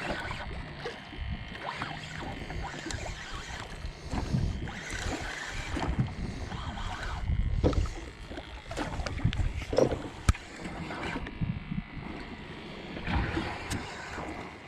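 Wind and water noise on a small fishing boat, gusting unevenly, with scattered knocks and a sharp click about ten seconds in.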